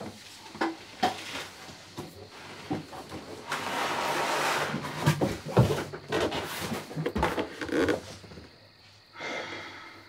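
Two people scuffling at close quarters in a small room: clothes rustling, with a series of sharp knocks and bumps against the fixtures. The rustling thickens a few seconds in, and there is a short burst of noise near the end.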